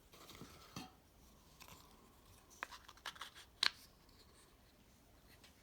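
Faint handling sounds of items being unpacked from a box: a few light clicks and taps, scattered over quiet room tone.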